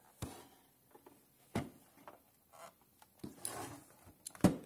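Hard plastic router case handled and moved on a tabletop: a few scattered knocks and clicks with some light rubbing, and a sharper knock near the end.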